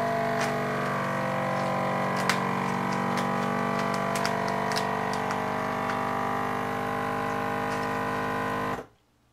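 Countertop vacuum sealer's pump running with a steady hum while it draws the air out of a bag of corn, with a few light crinkles and clicks of the plastic bag. It cuts off suddenly near the end as the cycle finishes.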